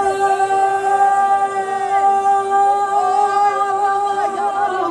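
A single voice sings one long held note without accompaniment. It slides up into the note at the start and drops off just before the end, over fainter voices singing and praying underneath.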